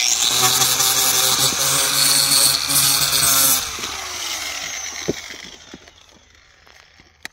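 Electric angle grinder with a sanding disc running against a geomembrane pond-liner patch, sanding the surface clean so the extrusion weld will bond. It runs steadily for about three and a half seconds, then is switched off and winds down over the next two seconds or so.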